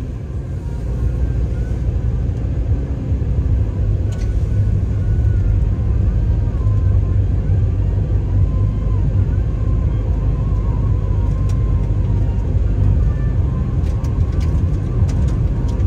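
Car driving on a compacted-snow road: a steady low rumble of tyres and engine, with a few light clicks near the end.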